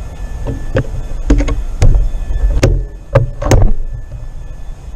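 A series of sharp mechanical clicks and knocks, some in quick pairs, from a Benjamin Kratos .25 cal PCP pellet rifle's side lever and magazine being worked while a magazine problem is cleared, over a steady low rumble.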